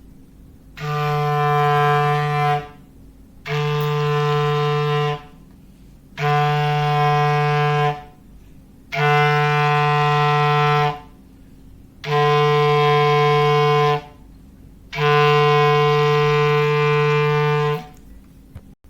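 Foghorn sound effect: six long blasts on one low, steady pitch, each about two seconds, with short gaps between them; the last blast is slightly longer.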